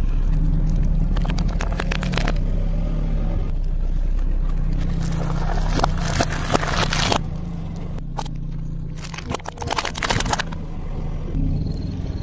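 A car engine running with a low, steady hum while a tyre rolls over objects and crushes them. There are bursts of crunching and crackling about two seconds in, again around the middle, and once more near ten seconds.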